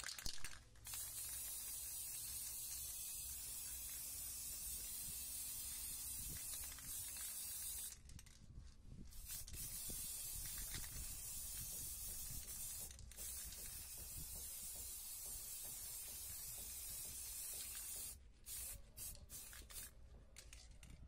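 Aerosol spray paint can spraying in long steady hisses, with a pause about eight seconds in and a short break near thirteen seconds, then several short bursts near the end.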